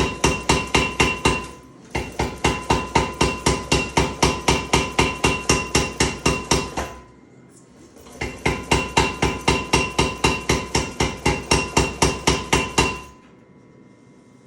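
Power hammer striking hot steel through a top tool in rapid, even blows, about four a second, with a metallic ring. The blows come in three runs with short pauses between, then stop near the end.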